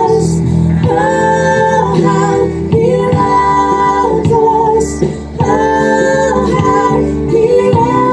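Live church worship music: a woman singing long held notes over a steady instrumental accompaniment.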